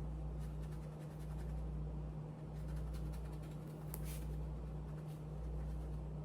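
A steady low hum under a deep rumble that pulses about every second and a half, with faint scratching and rubbing sounds, the clearest about two thirds of the way through.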